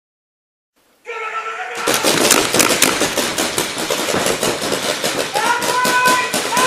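Several paintball markers firing reballs in rapid, overlapping cracks, starting about two seconds in, with players shouting over the shooting.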